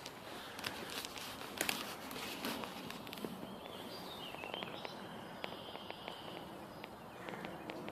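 Footsteps rustling and crackling through leaf litter on a woodland floor, irregular and uneven. A bird calls briefly in the middle.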